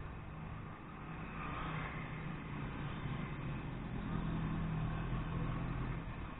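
A motor vehicle's engine running steadily under road noise. It grows louder after the first second and eases off shortly before the end.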